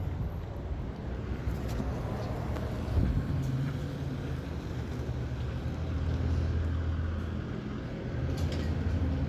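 Motor vehicle running with a steady low engine rumble and road noise, swelling a little about six seconds in, with a short knock about three seconds in.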